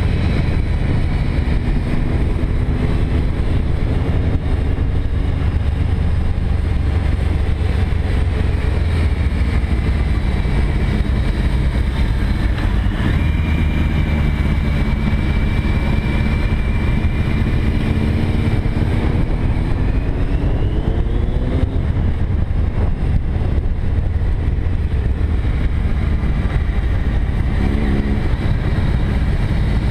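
Cruiser motorcycle riding along a twisty road: steady wind rumble over the microphone with the engine note beneath it, which rises as the bike accelerates about two-thirds of the way through, then drops back.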